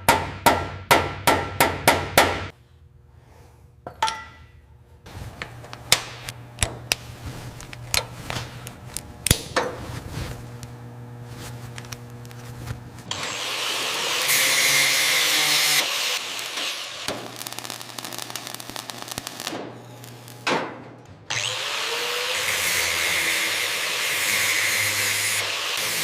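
Workshop tool work: a quick run of ringing hammer blows at the start, scattered knocks, then a power tool running steadily from about halfway, stopping briefly and starting again.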